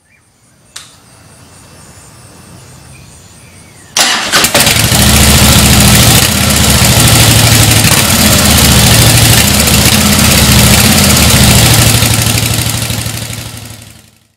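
2009 Harley-Davidson Heritage Softail's Twin Cam 96 V-twin starting about four seconds in and then idling loudly through its stock mufflers, with a pulsing rhythm; the sound fades out near the end.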